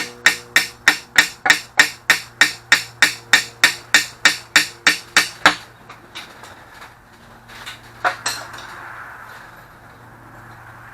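Rapid, even hammer blows on a steel engine dipstick tube, about four a second, each ringing, as the tube is knocked out of a Ford 351 Windsor block. The blows stop about five and a half seconds in, followed by a couple of lighter knocks.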